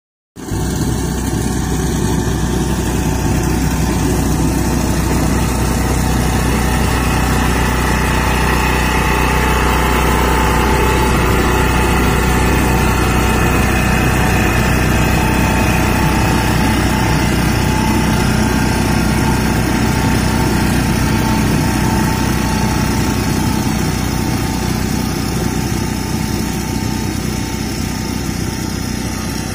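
Walk-behind power reaper's small air-cooled diesel engine running steadily under load while its cutter bar cuts tall crop stalks. It starts abruptly just after the beginning and grows slightly quieter near the end as the machine moves away.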